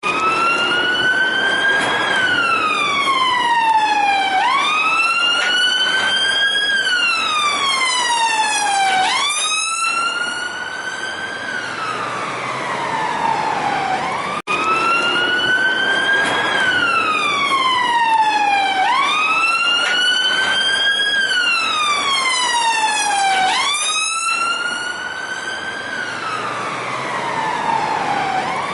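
Police car siren sounding the wail tone: a steady rising and falling pitch that sweeps up for about two seconds and down for about two and a half, over and over, over a steady hum of traffic. The sound cuts out for an instant about halfway through.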